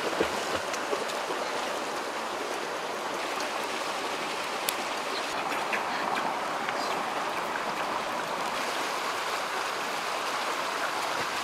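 Shallow rocky stream running over stones: a steady, even wash of water, with a few faint clicks.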